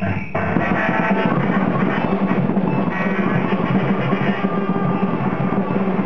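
Live band music: a drum kit played continuously, with keyboard tones over it. The playing breaks off briefly just after the start, then comes back in.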